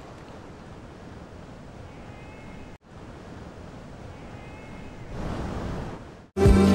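Sea ambience: a steady wash of surf and wind with no clear rhythm, swelling a little about five seconds in, with two faint high calls that are likely gulls.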